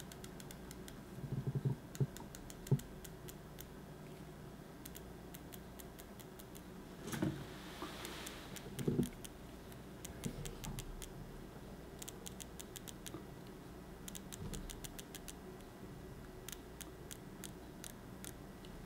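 Omega Seamaster Professional's dive bezel being turned by hand, ratcheting in runs of faint, quick clicks, with a few soft handling bumps in the first half.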